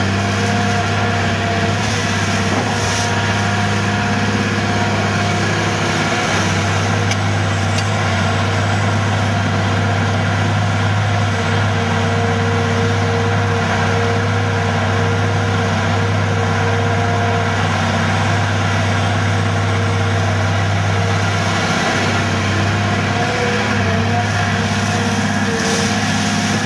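Caterpillar 345B long-reach excavator's diesel engine running steadily as the machine digs and swings, with a mid-pitched hydraulic whine that comes and goes.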